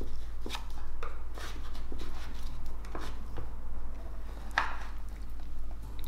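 A freshly baked blender chicken pie being cut and served: irregular knocks and scrapes of the blade going through the crust and meeting the baking dish, the loudest knock about four and a half seconds in.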